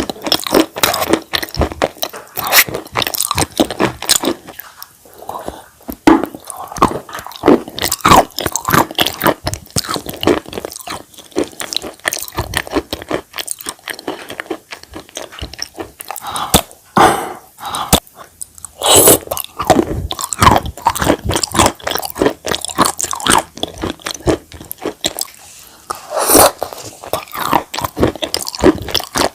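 Close-up crunching and chewing of clay and chalk pieces in the mouth: sharp, dense bites and crunches in quick runs, with a few short pauses.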